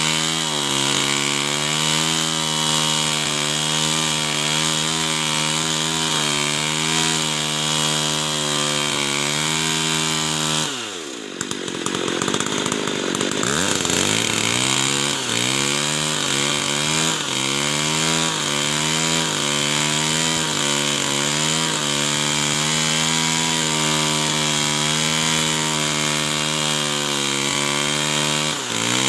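Two-stroke chainsaw running at high revs while cutting wood, its pitch wavering as the load changes. About eleven seconds in the engine speed drops sharply, then climbs back to full speed over the next couple of seconds.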